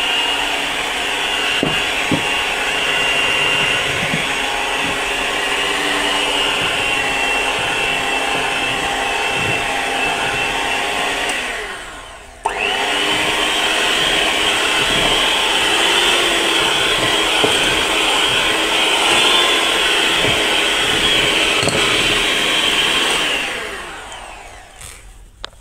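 Aicok electric hand mixer running with dough hooks, kneading flour dough in a bowl: a steady motor whine. It runs down and stops about eleven seconds in, starts again abruptly a second later, and winds down to a stop near the end.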